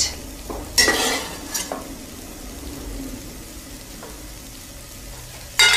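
Chopped carrots and onions sizzling softly in oil in a pan as they are spooned out, with a metal spoon scraping and clinking against the pan about a second in and again near the end.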